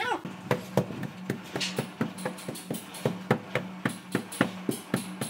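Background music with a quick, steady percussive beat of sharp knocks over a low held tone.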